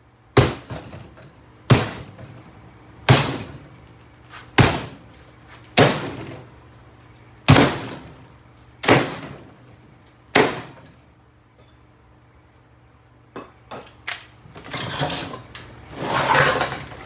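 Kenmore mini fridge being smashed: eight hard blows to its cabinet about every second and a half, each ringing briefly. After a pause come a few light knocks and then a stretch of scraping and rattling.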